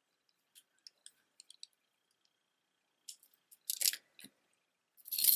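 Stone-bead jewelry clicking and rattling as it is handled: a few faint clicks, then louder clacks about three to four seconds in, and a loud jangle of beads starting near the end.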